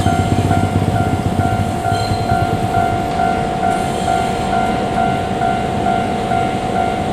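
Japanese level-crossing alarm ringing steadily, about two electronic dings a second, over the low rumble of a JR Kyushu 787-series train running past on the rails.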